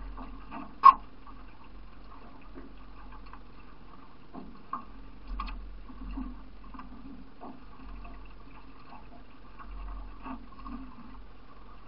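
Paddle strokes from a solo racing canoe: irregular soft splashes and drips of water off the blade, with light knocks. One sharp knock stands out about a second in.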